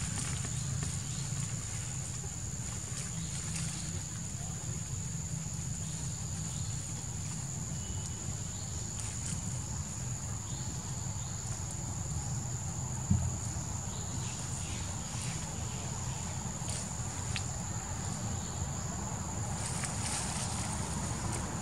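Insects droning in the forest: one steady high-pitched tone, with a low rumble beneath it and a few faint clicks and rustles. One sharp thump stands out about thirteen seconds in.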